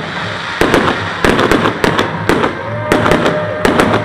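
Fireworks display: aerial shells bursting in quick, irregular succession, several bangs a second, with crackling between them. A faint steady tone runs through the second half.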